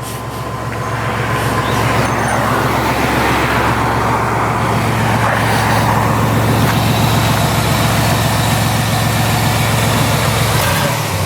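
Car running, a steady low engine hum under road or air noise that swells over the first couple of seconds, holds, and drops off near the end.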